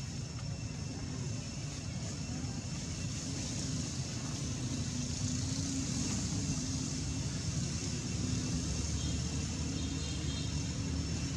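A steady low rumble, like a motor running, with a faint high hum above it.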